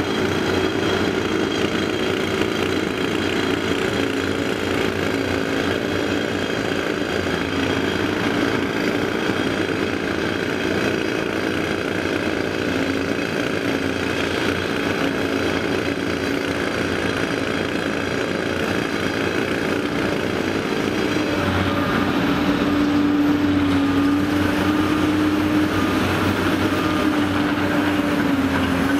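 Caterpillar 385B L excavator's diesel engine running steadily under working load as the machine digs and dumps rock. A steadier, stronger whine rises over it from about three quarters of the way in.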